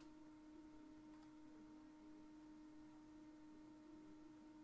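Near silence: a faint, steady background hum on one unchanging pitch, with no other sound.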